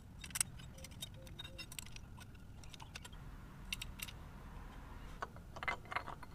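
Light metallic clicks and clinks of small clutch parts being handled and fitted while a Harley-Davidson clutch is put back together, in a few scattered clusters over a low steady hum.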